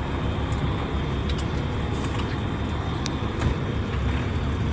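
Fire engine's diesel engine running steadily, a constant low rumble.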